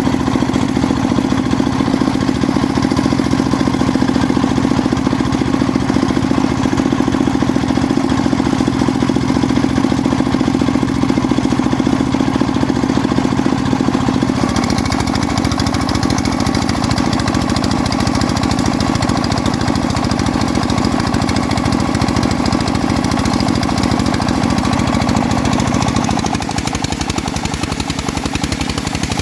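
Homemade bandsaw sawmill running, its engine thrumming steadily as the blade saws through an old teak log. The sound shifts about halfway through, with more high hiss, and drops in level a few seconds before the end.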